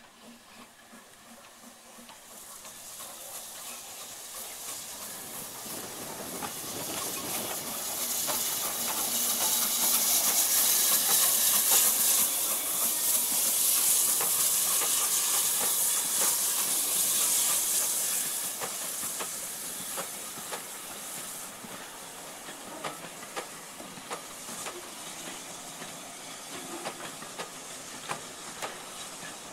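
BR Standard Class 4 4-6-0 steam locomotive No. 75069 passing close with its train, a loud hiss of steam swelling up as it comes by and dying away as it goes. In the second half, the coaches' wheels click over the rail joints as the train runs off.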